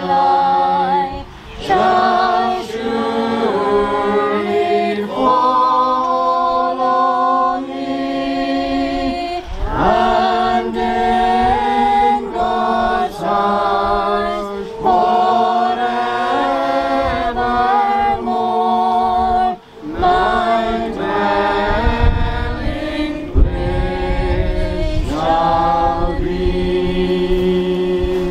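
A congregation singing slowly and unaccompanied, several voices holding long notes, with short breaks between the sung lines.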